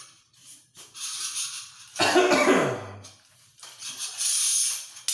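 A man coughs once about two seconds in, between short scraping sounds of a metal flange being slid along a curved metal shower curtain rod.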